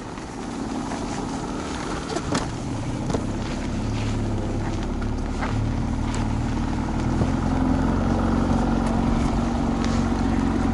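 Outboard motor of an aluminium bass boat running steadily, growing louder over the first few seconds as the boat gets under way, with a few faint clicks through it.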